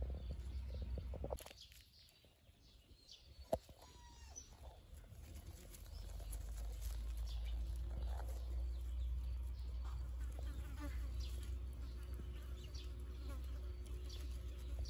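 An insect buzzing faintly and steadily over a low outdoor rumble, with scattered small clicks and one sharp tick about three and a half seconds in.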